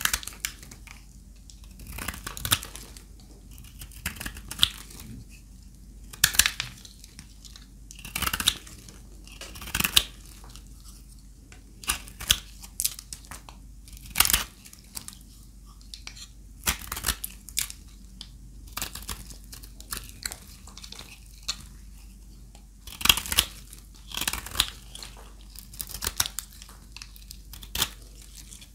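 Knife cutting through dry, brittle bar soap, a crisp crunching crackle with each cut, about one every second or two.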